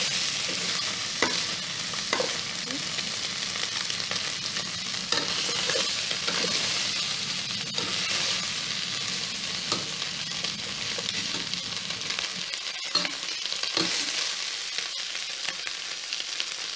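Pork pieces sizzling steadily as they fry in their own rendered fat in a pot, the water already cooked off and the fat still rendering out. A metal spoon stirs them, clicking and scraping against the pot now and then.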